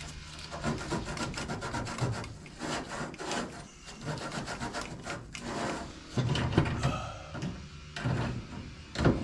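A hand tool rubbing or rasping against a surface in rapid, repeated rough strokes, some louder than others.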